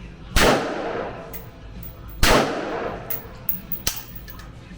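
Two gunshots about two seconds apart, each followed by a long echo in an enclosed range, then a few smaller sharp clicks.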